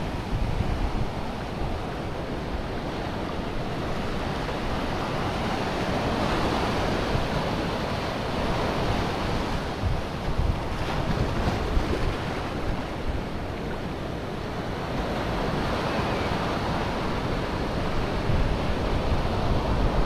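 Sea surf breaking and washing up over the sand at the water's edge, in slow swells that rise and fade every few seconds, from a fairly rough sea. Wind buffets the microphone with a low rumble underneath.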